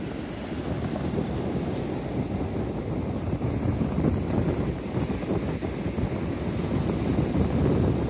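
Wind buffeting the microphone in a low rumble, over the wash of waves breaking and running up a sandy beach. It grows a little louder toward the end.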